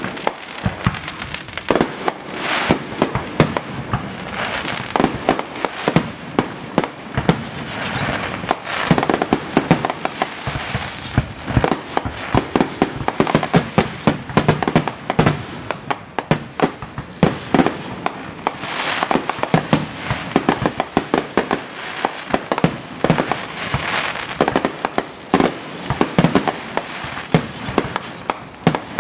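Fireworks finale barrage: aerial shells bursting in rapid, overlapping succession, a dense run of bangs several a second with no pause.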